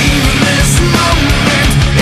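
Loud hard rock music in a heavy metal style, with dense distorted sound and a driving drum beat.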